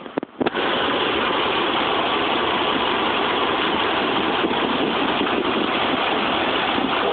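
2006 Ford F-150's 5.4-litre V8 engine running, heard close up as a loud, steady engine noise that comes in abruptly about half a second in. It is the diesel-like tick and clack the owner is chasing, which he suspects comes from faulty VCT solenoids.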